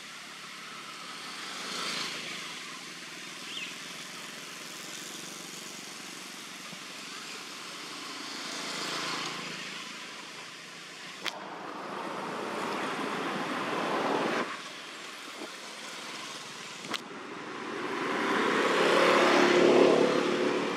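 Road traffic: vehicles passing one after another, each swelling and fading away, the loudest passing near the end. Two short sharp clicks fall in between.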